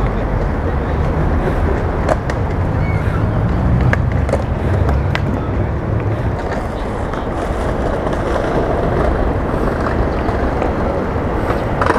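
Outdoor city ambience: a steady low rumble, heaviest for the first half and then lighter, with a few faint clicks and knocks.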